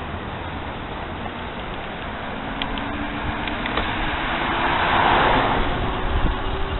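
An oncoming car passes, its tyre and engine noise swelling to a peak about five seconds in and then fading, over the steady rush of wind and road noise from the moving bicycle.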